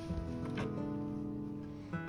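Background music: plucked-string notes, two struck near the start and about half a second in, left to ring on as held chords.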